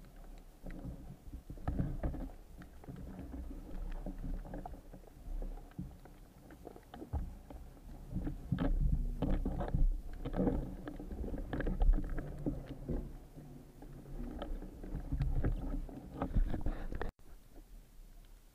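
Muffled underwater sound heard through a camera mounted on a speargun: a low water rumble with irregular knocks and clunks as the gun and the speared octopus are handled, louder through the middle. It cuts off suddenly near the end and gives way to a quieter water hiss.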